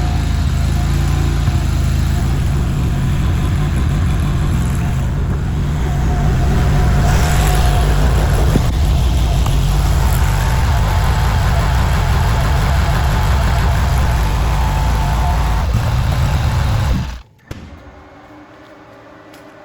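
Vorx NL380 mini skid steer's 23 hp Rato V-twin engine running steadily while the machine lifts a roughly 400-pound air compressor in its bucket, then shut off abruptly about 17 seconds in.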